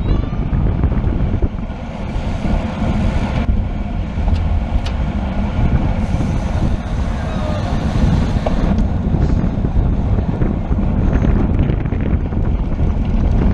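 Wind buffeting the camera microphone while riding a bicycle: a steady low rumble with a few faint clicks.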